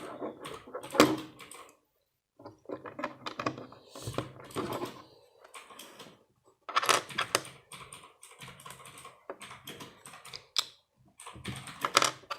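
Plastic Lego bricks clattering and clicking as they are handled and pressed together, in several bursts of quick clicks with short pauses between them.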